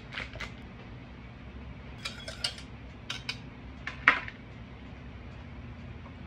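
Kitchen utensils clinking and knocking against dishes and containers in a scattered series, the loudest knock about four seconds in, over a steady low hum.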